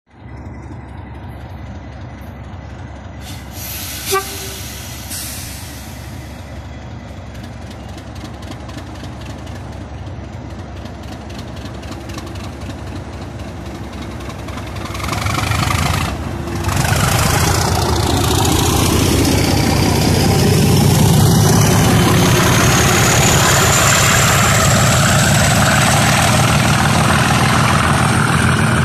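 Class 37 diesel locomotives with English Electric V12 engines idling, then opening up to full power as the train pulls away: the engine note swells sharply from about fifteen seconds in, and a turbocharger whistle climbs steadily in pitch through the last ten seconds. A brief toot sounds about four seconds in.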